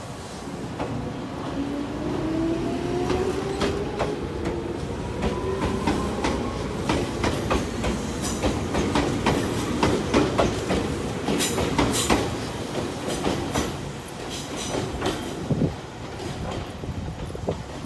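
Ex-Tokyu 8500-series field-chopper electric train pulling away: its traction motors whine, rising in pitch over the first several seconds as it accelerates. Then its wheels clatter over rail joints and points in a run of sharp clacks, fading as the train moves off.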